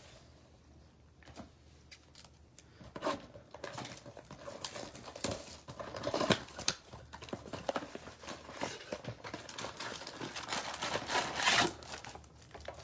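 A sealed Topps Update baseball-card blaster box being opened by hand: plastic wrap crinkling and tearing and cardboard ripping, with scattered light clicks. It starts about three seconds in and goes on irregularly, with the loudest tear near the end.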